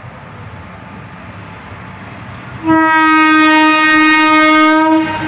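Indian Railways WAP-4 electric locomotive approaching with its running noise slowly growing. About halfway through it sounds one long horn blast at a single steady pitch, lasting about two and a half seconds, the loudest thing here.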